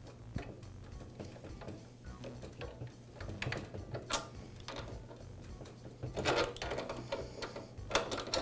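Light mechanical clicks and rattles of a new drive belt being worked onto a Porter Cable planer's lower pulley by hand while the pulley is turned with an adjustable wrench. There is a sharp single click about four seconds in and louder bunches of clatter around six and eight seconds in.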